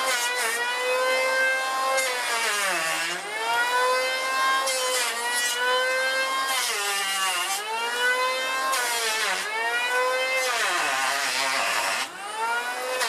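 Chicago Electric 3-1/4 in., 7.5 A electric hand planer running as it shaves the cut end of a log, its high motor whine sagging in pitch about four times as the blades bite under load and recovering between passes, with the hiss of wood being cut.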